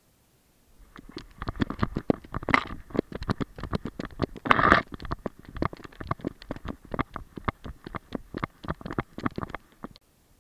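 Rapid, irregular knocks and thuds from a GoPro Fetch harness on a running Weimaraner, as its footfalls jolt the camera, with two louder rushing bursts about two and a half and four and a half seconds in. The knocking stops shortly before the end.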